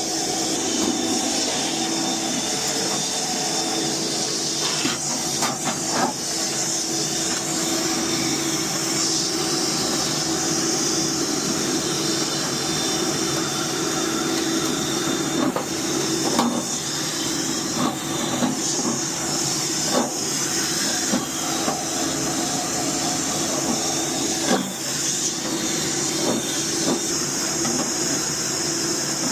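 Steady mechanical hum and hiss with scattered light clicks and knocks.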